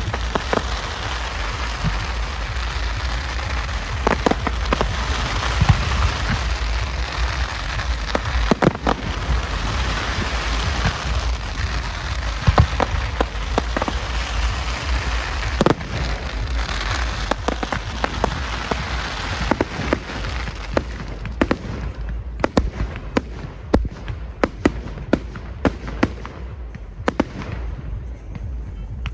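Fireworks display: a dense, rain-like hiss of crackling fireworks for about twenty seconds, then thinning into separate sharp pops and bangs.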